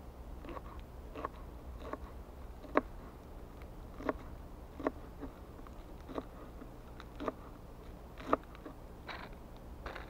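Kitchen knife chopping lettuce leaves on a plastic cutting board: an uneven series of crisp chops, roughly one a second, two of them much louder than the rest.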